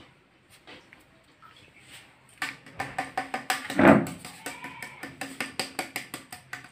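Hard-boiled eggs being handled in a steel pot of water: a splash as an egg is lifted out, about four seconds in, amid a run of sharp, rapid clicks at about four or five a second.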